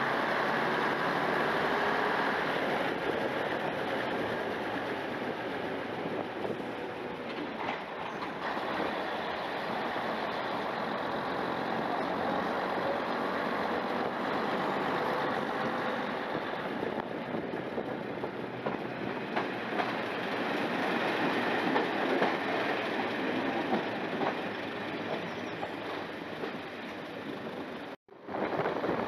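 Class 121 diesel railcar pulling out of a station and running along the line, its diesel engine and the wheels on the rails heard from a window. The sound drops out for a moment near the end.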